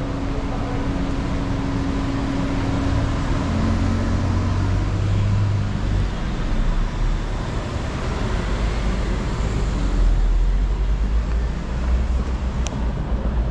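City street traffic: cars running on the road beside the pavement, a steady low noise, with a steady engine hum in roughly the first half.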